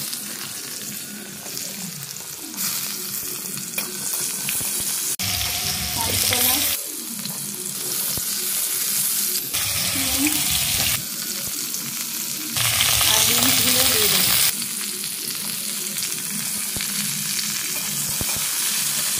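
Pieces of sweet potato, green banana and beans sizzling as they fry in hot oil in a wok, stirred with a spatula. The sizzle steps louder and softer several times.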